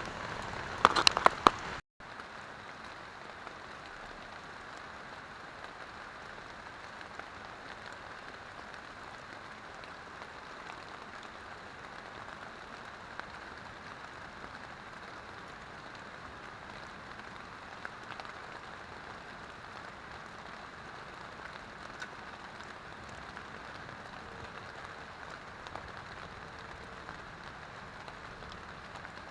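Steady rain falling on a tent, an even hiss with occasional faint drop ticks. About a second in there is a brief clatter of handling.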